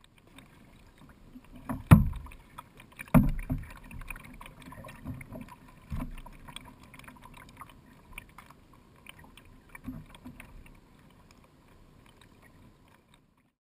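Kayak paddling heard close from the bow: double-bladed paddle strokes and water splashing and slapping against the kayak, irregular, with the loudest splashes about two and three seconds in.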